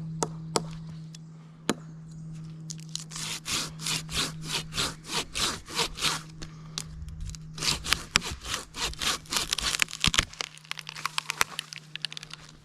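Hand saw cutting through wood with quick back-and-forth strokes, about three a second, in two runs with a short pause between them. A steady low hum sits under the first half.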